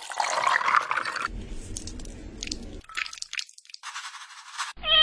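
Milk pouring over ice cubes in a glass, a rushing splash for about a second, followed by quieter scattered clicks and rustles.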